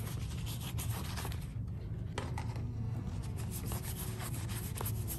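Soft-bristled toothbrush scrubbing soapy water over a plant leaf, a quick run of light scratchy rubbing strokes that pause briefly about two seconds in, over a steady low hum.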